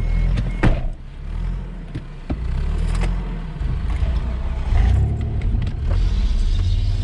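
Off-road 4x4's engine running at low revs, with a sharp knock about two-thirds of a second in and a few lighter knocks later; the engine grows louder in the second half.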